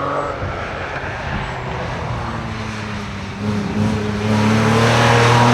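Hillclimb competition car's engine running hard at high revs, the note growing much louder about two-thirds of the way in as the car comes closer, then holding a steady pitch at its loudest near the end.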